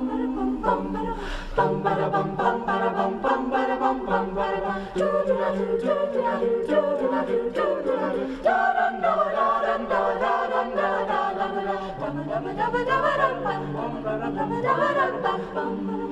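High school choir singing a cappella in several parts, holding chords that change every second or so.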